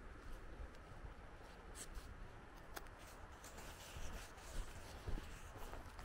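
Faint footsteps and clothing rustle of a person walking on a wet dirt lane, with a few light ticks.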